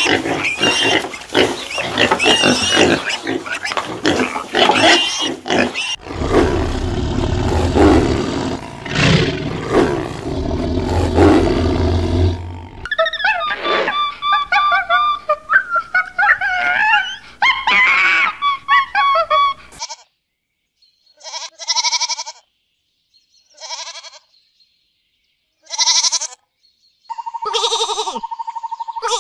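Calls from several different animals, one after another. First comes a dense run of calls, then a louder, deeper stretch, then high calls that rise and fall in pitch. The second half ends with a handful of short separate calls with gaps between them, and one held call near the end.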